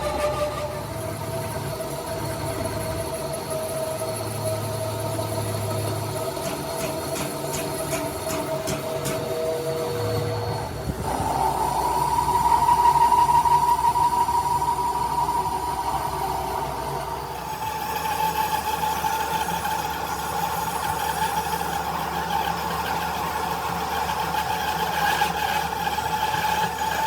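Repair-shop machinery running steadily with a whine that jumps higher and louder about eleven seconds in and changes again near eighteen seconds, with a few clicks near the end.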